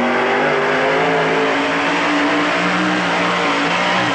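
A mud-racing truck's engine running hard at high revs. Its note climbs slightly over the first couple of seconds, then holds steady over a loud rushing noise.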